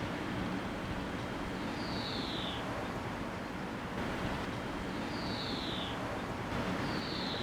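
A bird calling a short, clear, falling whistle three times, a few seconds apart, over a steady outdoor background hiss.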